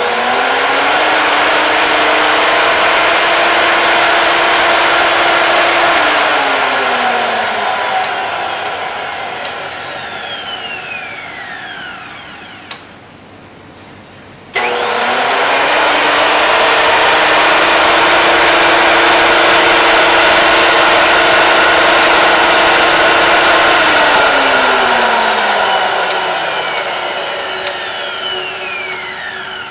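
Makita 2012NB thickness planer switched on twice. Each time its motor and cutterhead spin up with a rising whine, run steadily for several seconds, then coast down with a long falling whine after being switched off. As it winds down it makes a ticking or clicking sound.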